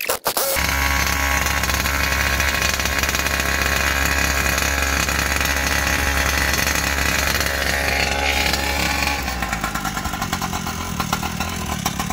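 Small gasoline engine of a 1/5-scale Primal RC Raminator monster truck catching just after a few clicks at the start and running at a steady fast idle. About nine seconds in it drops to a lower, uneven, choppy idle.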